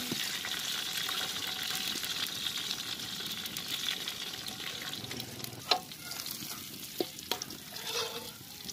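Fish pieces sizzling in hot oil in a large metal wok, the sizzle easing off in the second half. A metal ladle and slotted skimmer clink against the pan a few times.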